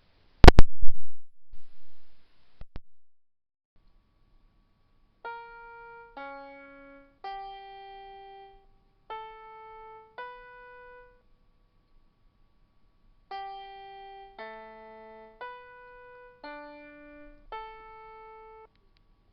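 Computer-generated piano tones playing back a sung melody that a MATLAB app has converted into piano notes: two short phrases of five separate notes each, with a pause between them. A single loud click comes just before, about half a second in.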